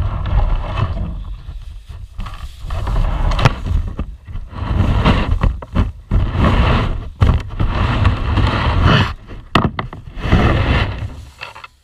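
Wind buffeting an outdoor camera microphone: loud, gusty rumbling that surges and drops irregularly, mixed with some handling rustle.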